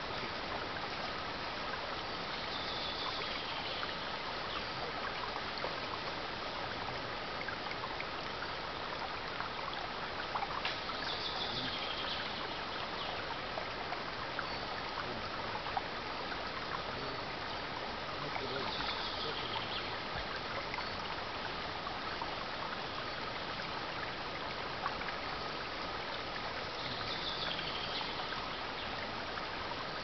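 Clear mountain stream running over and around rocks: a steady rush and trickle of water. A faint higher sound comes back about every eight seconds.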